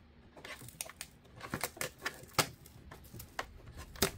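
Irregular sharp plastic clicks and snaps as the JBL PartyBox Stage 320's plastic trim and its clips are pried and pulled loose, the loudest snaps about halfway through and near the end.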